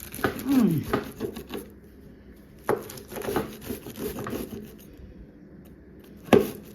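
Cooked pizza being cut into slices: bursts of scraping cutting strokes with sharp clicks of the blade on the surface beneath, in two runs and then one sharp knock near the end.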